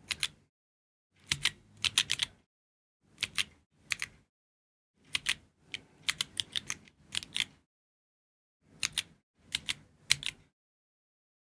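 Georgi stenographic keyboard being chorded: quick clusters of sharp key clicks as several keys are pressed together and released, in about five bursts with short pauses between.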